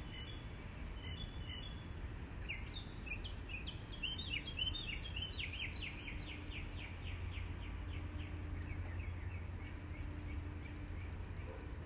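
A small songbird singing: a few short chirps, then from a couple of seconds in a rapid run of short, high, downward-sliding notes that thins out toward the end, over a steady low outdoor rumble.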